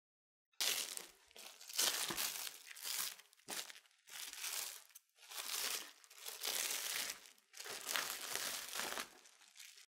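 Plastic cling film crinkling as it is peeled off a chilled sheet of rolled cookie dough, in a series of bursts starting about half a second in.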